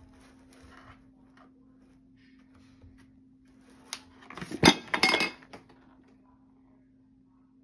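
A small wastebasket knocked off a low shelf by a cat: faint scrapes as it is pawed, then about four and a half seconds in it hits the floor with a thump and a short clinking clatter.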